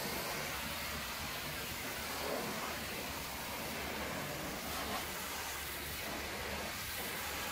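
Pressure washer lance spraying water onto the stainless steel tank of a milk tanker, rinsing off the foam: a steady hiss of spray over a low, even hum.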